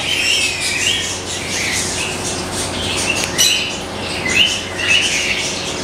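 Many caged pet birds chirping and squawking together, a steady chatter of short, high calls.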